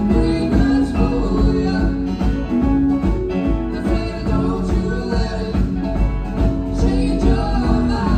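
Live band playing a song with vocals over electric guitars, bass guitar, keyboard and drum kit.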